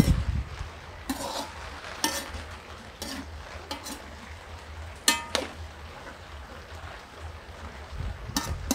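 Metal spatula scraping and clinking against a metal wok as peanuts and garlic are stirred in hot oil, with a faint sizzle of frying underneath. The strokes come every second or so, with a sharp ringing clink about five seconds in.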